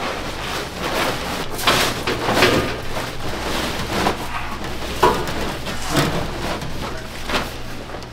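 Plastic tarpaulin rustling and crackling as it is dragged off a stall counter and gathered up, with several louder swishes as it is bunched and folded.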